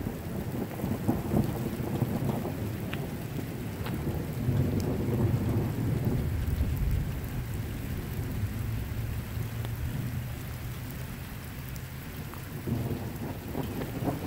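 Thunder rumbling low, rising and falling in long swells of a few seconds each, over a steady hiss of rain.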